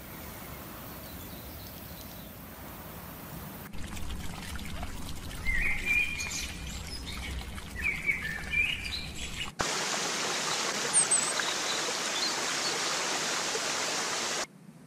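Faint outdoor background noise, then from about four seconds in birds chirping in short calls that rise and fall. Near ten seconds an abrupt cut brings a louder, steady hiss like running water, which stops suddenly near the end.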